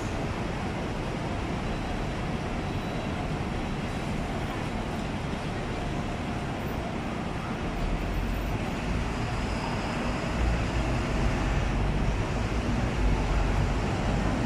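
City street traffic: a steady rumble of passing vehicles with no horns sounding, the low rumble growing louder from about eight seconds in as heavier vehicles go by.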